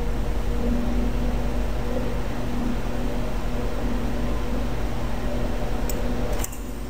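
Steady background hum and hiss picked up by the recording microphone, like a computer fan running. Two faint clicks come near the end, just before the noise drops abruptly to a lower level.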